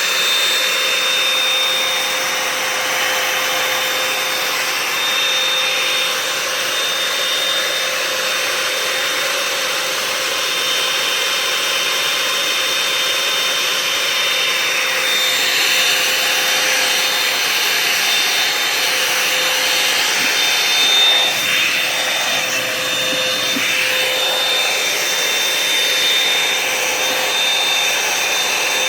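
Revlon One-Step hair dryer and volumizer hot-air brush running on high: a steady rush of blown air and motor noise with a thin steady whine over it, changing slightly now and then.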